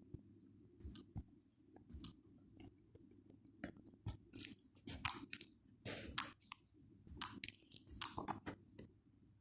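Slime being squished and worked, giving irregular sticky clicks and small wet pops, a few to several a second, with a busier stretch in the second half.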